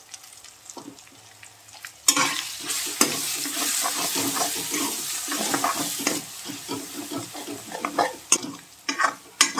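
Onion-tomato masala with freshly added spice powders frying in ghee in a steel kadhai, sizzling loudly while a steel spatula stirs and scrapes it round the pan. The sizzling starts suddenly about two seconds in, and the spatula knocks against the pan a few times near the end. This is the spices being roasted (bhuna) until fully cooked.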